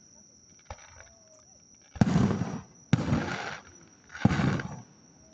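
Three aerial firework shells bursting, about two, three and four seconds in, each a sudden bang trailing off over about half a second. A steady high insect trill runs underneath.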